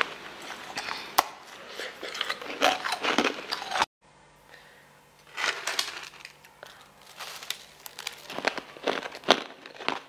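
Frozen ice being bitten and crunched in the mouth, in irregular crackling crunches: first a solid ball of coloured ice, then, after a short break in the sound a little before halfway, crushed pink ice.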